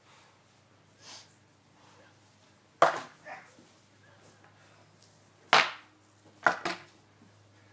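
Sparring weapons, a longsword and an axe, striking each other and a round shield in sharp clacks. There is a loud strike about three seconds in, another about five and a half seconds in, and a quick double strike soon after, with a few lighter knocks between.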